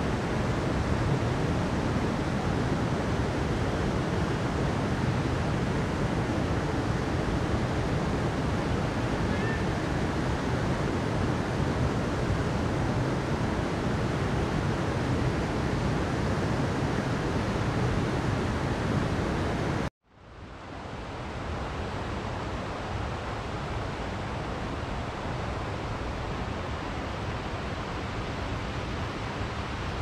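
Steady rush of a mountain stream flowing over rocks. About twenty seconds in it cuts out abruptly, then fades back in as a softer, quieter water sound.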